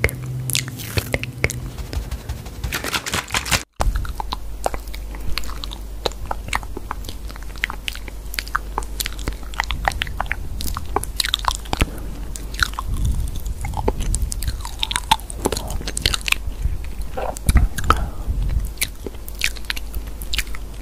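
Irregular crisp crunches and clicks over a steady low hum. The sound drops out for an instant a little under four seconds in.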